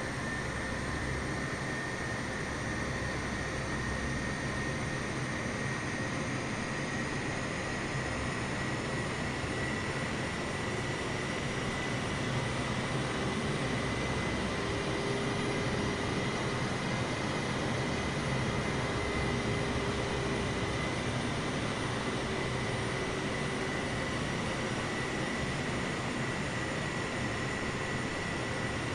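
Jet airliner's engines running steadily: an even rush with a high turbine whine that rises very slightly, a little louder about halfway through.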